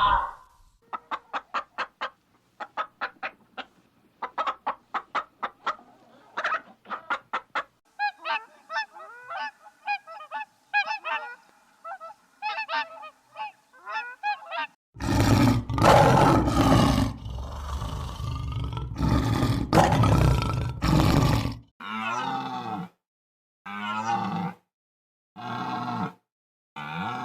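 A run of different animal calls in turn: rapid short clicking calls, then pitched warbling calls, then a loud rough call lasting several seconds about halfway through, then short separate calls with pauses between them.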